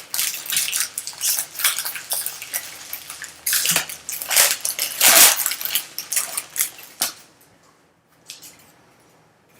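Bowman Draft baseball cards being handled and sorted on a table: a run of rustles, slides and light clicks that stops about seven seconds in.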